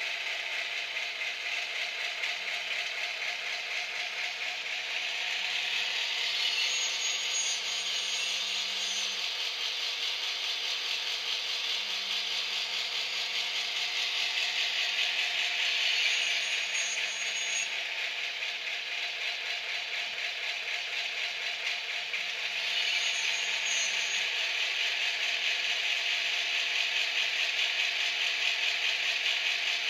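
ESU LokSound V4.0 sound decoder in an HO-scale SBB Bm 6/6 diesel locomotive model playing diesel engine sound through its small loudspeaker: a steady, rattly engine note. It grows louder and harsher three times, a few seconds in, about halfway, and from about three quarters of the way on.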